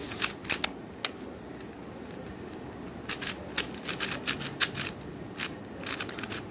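Plastic Meilong 4x4 speed cube being turned during a solve: irregular clicks and clacks as the layers snap round, coming in quicker runs a few seconds in.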